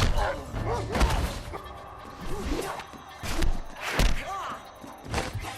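Film fight sound effects: a series of punch and kick impacts, about four hard thuds, with short grunts between them over the score.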